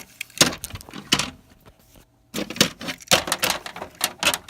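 Clattering and knocking of small hard toy pieces: a few sharp knocks in the first second or so, a brief pause, then a busier run of clicks and clacks.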